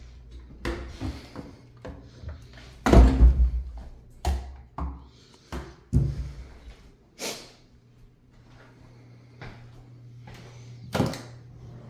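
Irregular knocks and thumps, about a dozen, the loudest a heavy deep thud about three seconds in, over a steady low hum.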